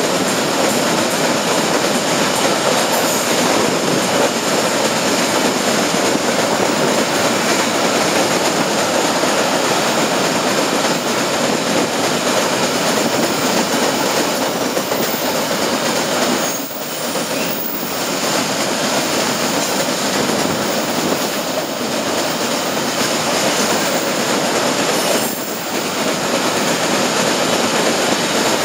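Loaded iron-ore hopper wagons rolling past close by: a steady, loud rumble and clatter of steel wheels on the rails, briefly dipping twice in the second half as gaps in the train go by.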